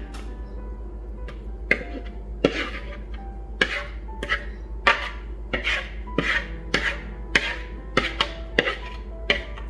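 Spatula scraping carrot cake batter into a cake mold: a dozen or so short, scratchy strokes about every half second, over soft background music.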